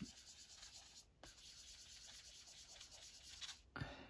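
Faint rubbing of a sponge-tipped applicator working pan pastel onto paper, with a short break about a second in and a soft knock near the end.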